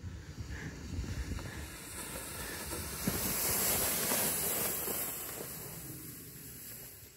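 Plastic sled sliding fast over packed snow, a steady hiss with wind rushing on the microphone. It builds about three seconds in and fades toward the end.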